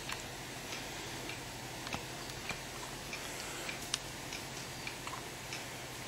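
A run of faint, sharp ticks, a few of them a little louder near 2 seconds and 4 seconds in, over a low steady room hum.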